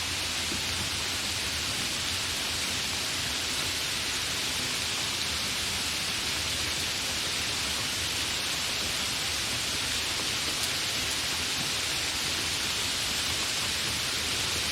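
Steady, fairly heavy rainfall with no thunder: an even, unbroken hiss of rain.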